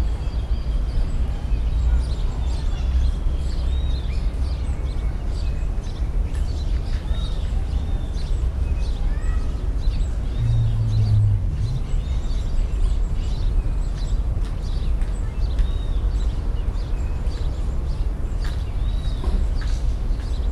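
A steady low rumble with birds chirping on and off, short high calls scattered throughout. A brief low hum sounds about ten seconds in.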